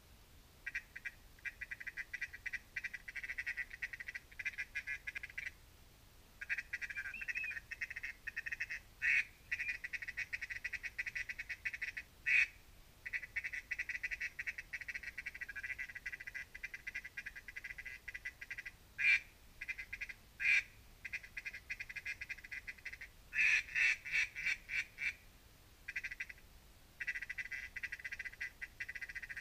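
A dense, continuous chorus of high, fast-pulsing animal calls, broken by short gaps. A few louder, sharper calls stand out, several of them close together about three-quarters of the way through.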